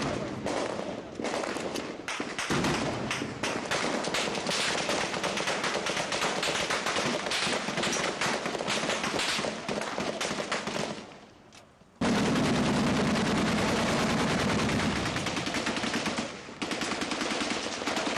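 Automatic gunfire in combat: rapid bursts of shots following one another almost without pause. It fades briefly about eleven seconds in, then cuts abruptly to louder firing over a low hum.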